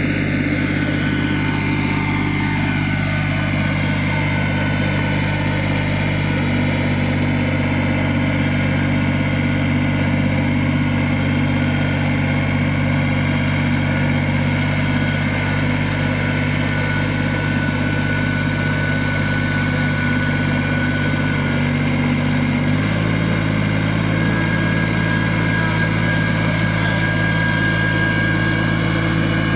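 Compact utility tractor's diesel engine running steadily while working under a heavy load on its loader forks. Its pitch shifts slightly about six seconds in and drops a little about 23 seconds in.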